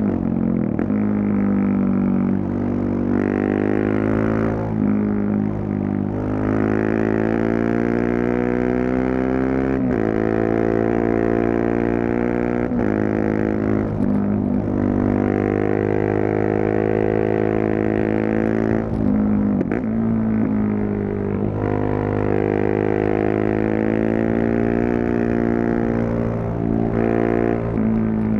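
Single-cylinder engine of a KTM 690 Duke motorcycle with a Leovince full exhaust, accelerating hard. The revs rise and drop back at each gear change, several times over, on open-throttle riding.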